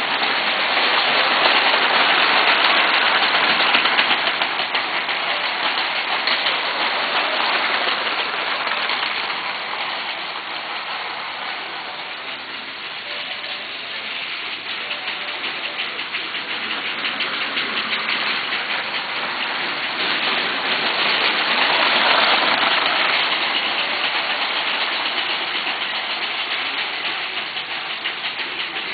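Lego 12-volt trains running on the layout: a steady whirring rattle of the small train motors and wheels clicking over the plastic track. It swells louder twice, early and again about three-quarters of the way through, as trains pass nearer.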